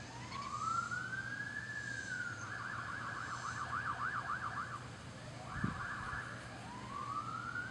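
Electronic emergency-vehicle siren: a rising wail that levels off, switching to a fast yelp warbling about four times a second, then the wail rising again near the end. A brief low thump a little over halfway through.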